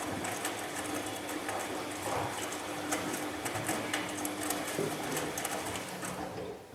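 Bosch MAXX 6 front-loading washing machine running: a steady motor hum under many quick, irregular clicks. The sound cuts off sharply near the end.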